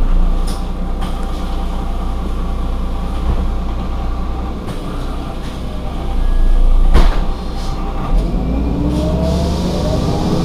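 Heuliez GX 127 city bus's engine idling with a steady low hum. A short sharp sound about seven seconds in, then a rising whine from about eight seconds.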